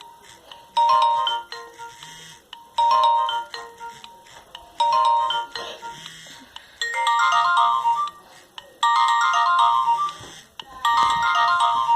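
Nokia 1110 mobile phone playing a ringtone: a quick melody of short electronic beeps, repeated as a phrase about every two seconds. About seven seconds in it changes to a busier, higher-pitched phrase.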